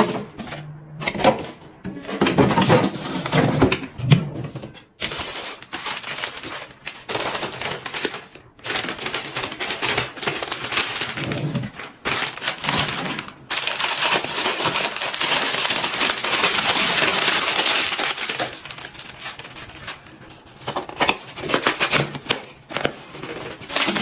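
Close-up handling sounds of cleaning and restocking: irregular taps, clicks and crinkles of cardboard and paper, with a few seconds of steady hiss in the middle, and crumpled paper pushed into a bin near the end.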